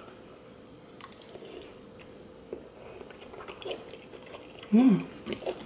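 A person chewing a mouthful of thick, chewy noodle tteokbokki with wet mouth sounds and small clicks, then a short hummed "mm" near the end, the loudest sound.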